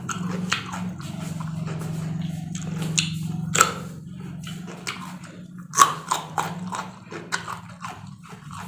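Close-up eating sounds: crisp crunching bites and chewing of raw vegetables and fried tempeh, in irregular clicks, with the loudest crunches about three and a half and six seconds in. A low steady hum sits underneath.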